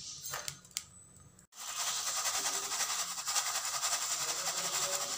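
Roasted peanuts rattling in a plastic sieve as it is shaken, a steady dense scratchy rattle as the roasting salt sifts out through the mesh. It starts abruptly about a second and a half in, after a few faint clicks.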